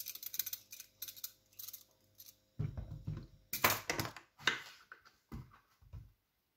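Vegetable peeler scraping strips of skin off a courgette in quick short strokes, followed from about two and a half seconds in by a series of louder knocks and clatters.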